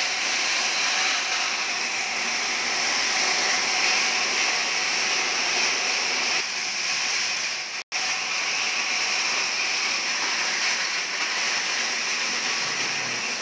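Steady, even rushing noise of running machinery, with a brief cut-out about eight seconds in.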